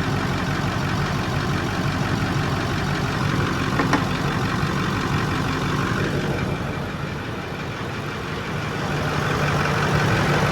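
Ford 6.4 PowerStroke twin-turbo V8 diesel idling steadily, with a light ticking from inside the engine. A single short click about four seconds in.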